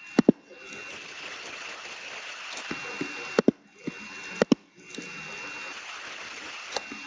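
Steady hiss with a thin high whine running through it, broken by several sharp clicks: a close pair just after the start, one in the middle, another close pair, and one near the end.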